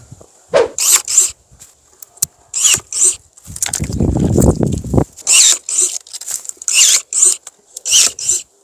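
Pruning work on a Japanese apricot tree: a run of short rasping cutting strokes, often in pairs, with a longer, louder rustle of branches about three and a half seconds in.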